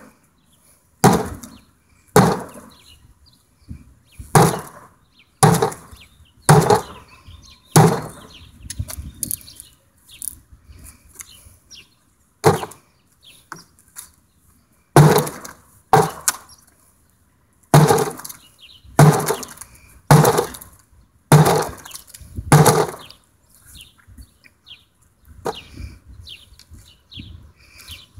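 A thick painted door being struck over and over with a handled striking tool, each blow a sharp crack with a crunch of the door's core breaking up. About sixteen heavy hits come roughly a second apart in runs, with pauses of a few seconds between runs.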